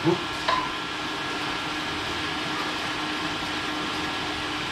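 Bicycle rollers (Elite Arion Mag parabolic rollers) whirring steadily under a road bike's tyres as the rider pedals, with a steady hum. Two brief knocks come within the first half second.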